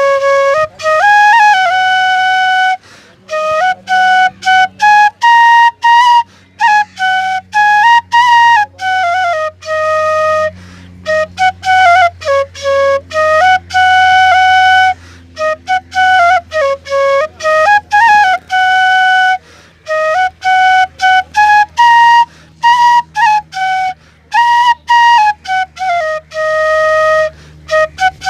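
Bansuri (Indian bamboo flute) playing a Chhath folk-song melody solo. It moves in phrases of separate notes, with short breaks between them and slides from one pitch to the next.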